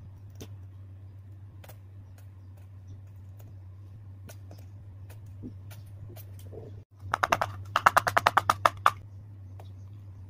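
Small plastic clicks from a candy mold and squeeze tubes being handled over a low steady hum. About seven seconds in, after a brief dropout, comes a fast run of about fifteen sharp taps lasting two seconds.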